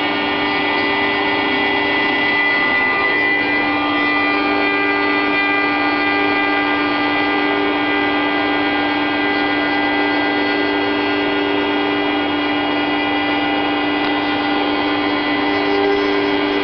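Homemade CNC machine running, its stepper motors and 800 W VFD-driven spindle giving a steady whine of several held tones that shift slightly about four seconds in.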